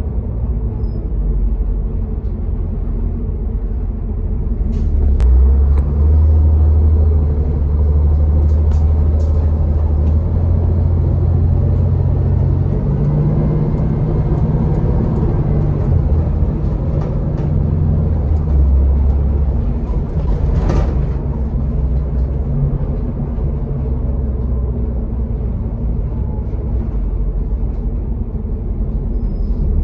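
Cabin sound of a Denning Phoenix low-floor bus with a Caterpillar engine under way: a steady low engine rumble mixed with road noise, the engine note rising and falling several times as the bus pulls and eases off. A brief sharp noise stands out about two-thirds of the way through.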